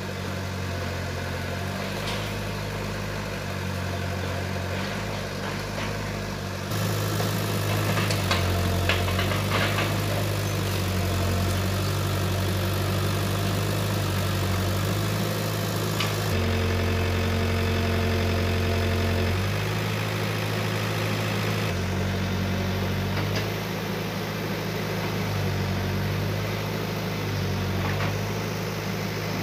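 Backhoe loader's diesel engine running steadily, its note shifting now and then, with a few short knocks and clatters of debris as it demolishes brick houses.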